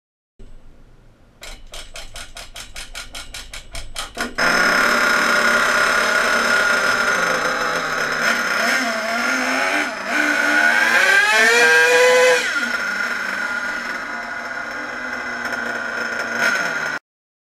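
Nitro glow engine of a radio-controlled car turning over in an even run of pops, about six a second, then catching a little over four seconds in and running at a high pitch. It revs up and down, climbs highest around twelve seconds, then drops back to a steady idle.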